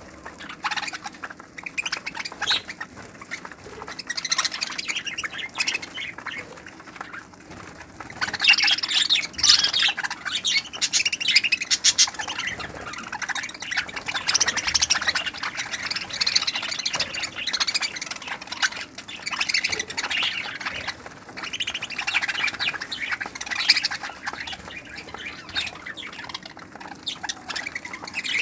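A flock of budgerigars chattering continuously, many birds calling at once in a dense mix of short chirps and squawks. The calling gets louder about eight seconds in.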